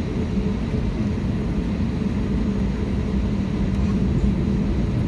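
Airbus A320neo cabin noise: the jet engines and aircraft systems give a steady low rumble with even hums, holding level with no spool-up.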